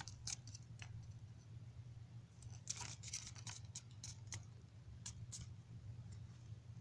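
Faint crinkling and crackling of a large glossy paper fold-out collector's guide being handled, in short scattered crackles: a few at the start, a cluster about three seconds in, and a couple more around four and five seconds. A steady low hum runs underneath.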